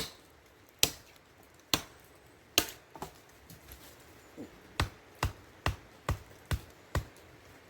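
A run of sharp knocks of a tool striking wood during fence repair: four strikes about a second apart, then after a short pause a quicker run of six, about two a second.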